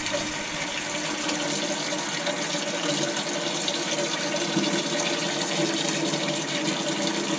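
Sink faucet running a steady stream of water into a stainless steel milking-machine bucket, filling it for a detergent soak.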